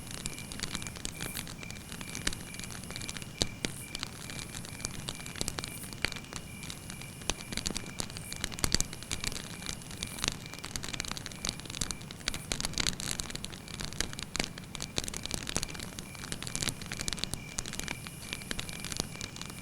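Campfire burning steadily, crackling with many small, irregular sharp pops and one louder pop a little under nine seconds in.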